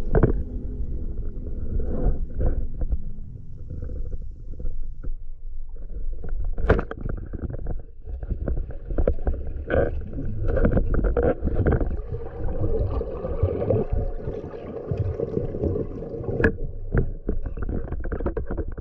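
Underwater sound picked up by a diver's action camera: a muffled, continuous rumble of moving water and bubbling, broken by scattered knocks and a couple of sharp clicks.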